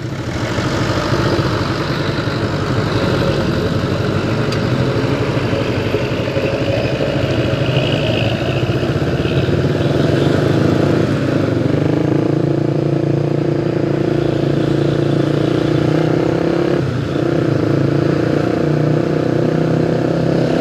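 Engine of a Karunia Bakti intercity bus accelerating hard as it passes close by and pulls ahead, mixed with the engine of the vehicle following it. The pitch rises over the first few seconds, then holds steady, with a brief dip about 17 seconds in.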